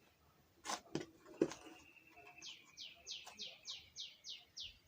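Two knocks from handling the phone and cable in the first second and a half, then a bird calling: a thin steady note followed by a regular series of about a dozen short falling chirps, roughly three a second.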